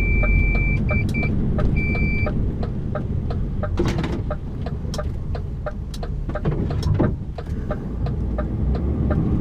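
Lorry engine running inside the cab while overhanging tree branches scrape and strike the truck's bodywork, with louder hits about four seconds in and again near seven seconds. A high steady beep sounds for about two seconds at the start, broken twice, over a regular fast ticking.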